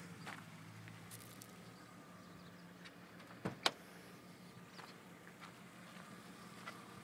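A car engine idling quietly, a low steady hum, with two sharp clicks about three and a half seconds in.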